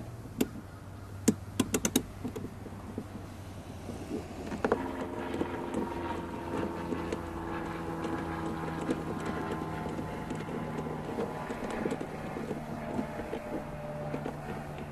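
A few sharp clicks in the first two seconds as a socket wrench goes onto a bolt. About five seconds in, a steady engine-like drone with a pitched hum starts and keeps going.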